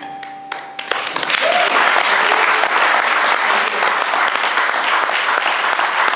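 Audience applauding. The applause breaks out about a second in, just as the last held note of the song ends, and carries on at a steady level.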